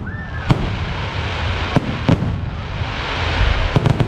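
Fireworks bursting overhead: several sharp bangs spaced unevenly, about five in all, two of them close together near the end, over a steady rumble and hiss from the display.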